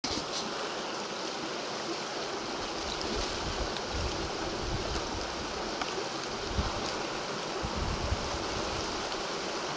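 River rapids rushing steadily, with wind buffeting the microphone in low gusts and a few small clicks.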